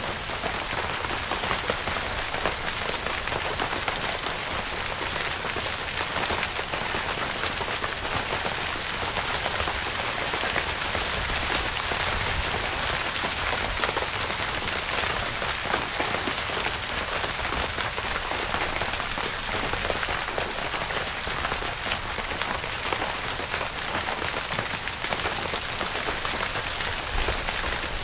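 Steady rain falling on a tent, a dense, even hiss of countless drop hits that does not let up, with a faint low rumble underneath.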